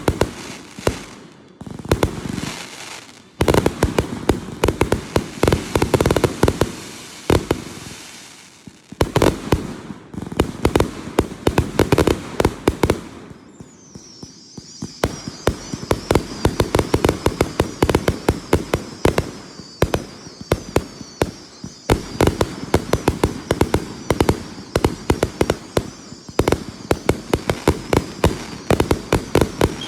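Fireworks going off: dense, rapid crackling pops, with a brief lull about halfway through, after which a high steady whistle sounds under the crackle to the end.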